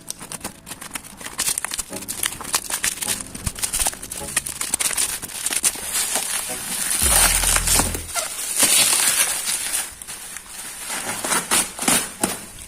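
Rustling and crinkling handling noise with many sharp clicks, as of packaging being handled, with a brief low hum about seven seconds in.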